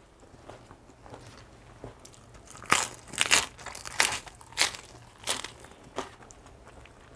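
Raw lettuce leaf being bitten and chewed close to the microphone: a run of about seven crisp crunches roughly half a second apart, starting a little before halfway and ending near the end.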